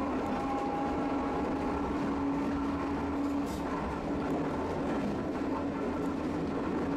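Streetcar running, heard from inside the passenger car: a steady rumble with a continuous low hum.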